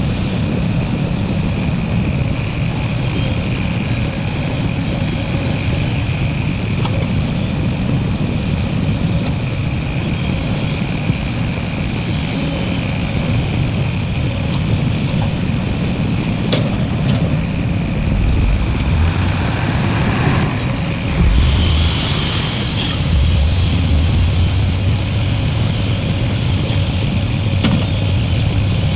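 Heavy diesel engines of earth-moving machinery, such as an excavator and a dump truck, running steadily with a low rumble. About two-thirds of the way through the engine note grows louder and deeper, with a few brief knocks along the way.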